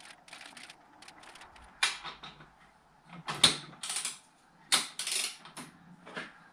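Torque wrench with a 30 mm 12-point socket on a VW Golf Mk4 front hub nut: a string of short ratcheting rasps and clicks, irregularly spaced, starting about two seconds in, as the nut is tightened back up to 50 N·m after being backed off half a turn.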